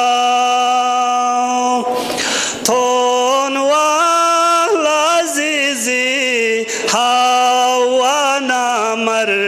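A solo voice chanting a devotional qasida in praise of Fatima Zahra, unaccompanied, holding long notes with wavering, ornamented turns.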